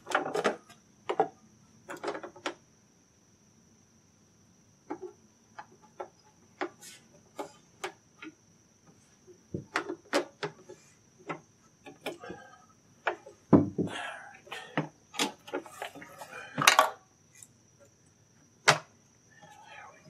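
Irregular clicks, clacks and knocks of a Homelite chainsaw's chain and guide bar being handled and fitted back together, with a few louder knocks in the second half.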